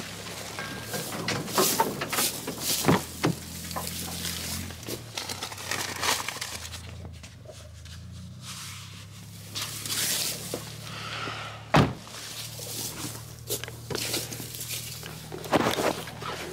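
Scattered knocks and thumps over a steady low hum, with one sharp knock about twelve seconds in.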